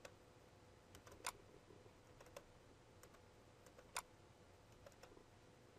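Near silence broken by a few faint computer mouse clicks, the two clearest about a second in and about four seconds in.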